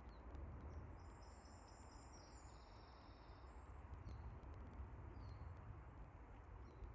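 Faint birdsong: a short stepped, high phrase about a second in, then a few brief high chirps, over a low steady rumble.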